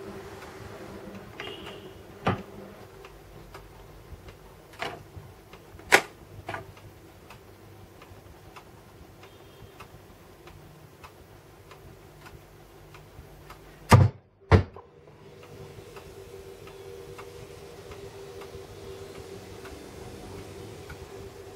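Controls of a Philips Hi Q International record player being worked by hand: a string of sharp mechanical clicks from the start/stop knob and tonearm, the loudest a pair about half a second apart two-thirds of the way through. Underneath runs a faint, regular ticking and a low steady hum from the running turntable.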